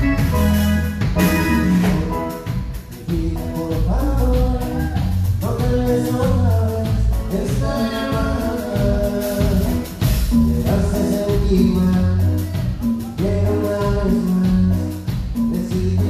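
Live cumbia band playing a song: sung vocals over keyboards and a drum kit, with a steady beat.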